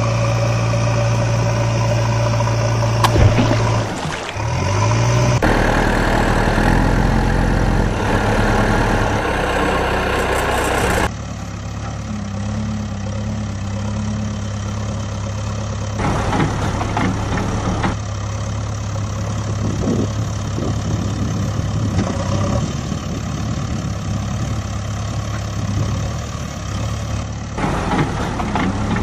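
Truck engine idling and running, in several sections that cut abruptly from one engine sound to another every few seconds.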